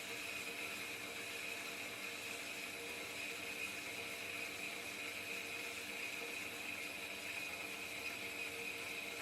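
Semi-automatic metal-cutting bandsaw running steadily partway through a cut in 5-inch solid round steel bar: an even hiss from the blade in the steel, with a steady high whine and a low hum beneath.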